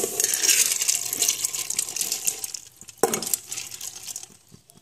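Split dal grains pouring out of a bowl into a metal pressure cooker, a dense pattering rattle for about two and a half seconds. A sharp knock comes about three seconds in, then a few last grains fall.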